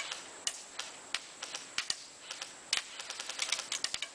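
CYMA M14 electric airsoft rifle firing a string of single shots, each a short sharp click, coming faster and closer together near the end.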